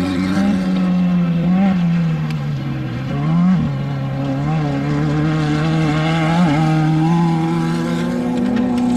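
Off-road desert race vehicle engine running hard. Its pitch wavers up and down, dips a little before three seconds in and jumps back up at about three and a half seconds.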